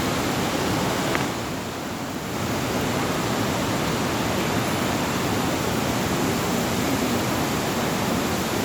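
Steady rushing of creek water flowing below a dam, an even hiss that dips briefly a little after a second in.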